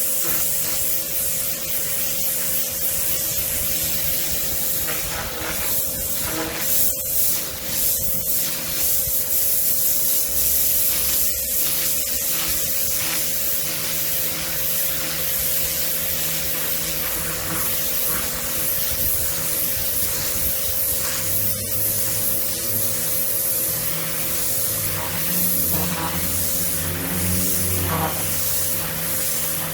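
Kärcher K7 pressure washer spraying a high-pressure water jet onto patio paving: a continuous hiss of water over a steady machine tone.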